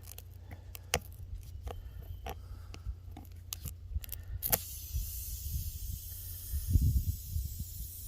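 Needle-nose pliers clicking and catching on a nail stuck in a car tire's tread. About halfway through the nail comes free and a steady hiss of air escaping through the nail hole begins, with a few dull knocks near the end.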